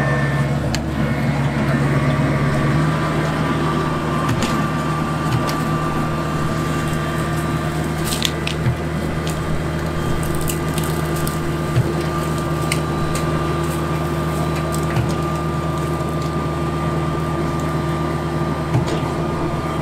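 Combine harvester engine running steadily, its pitch stepping up slightly about three seconds in, with scattered faint clicks over it.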